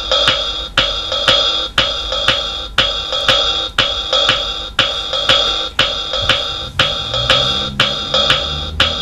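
Casio electronic keyboard's built-in drum rhythm playing a steady beat, about two strong beats a second with lighter hi-hat ticks between. A low bass line comes in about two-thirds of the way through.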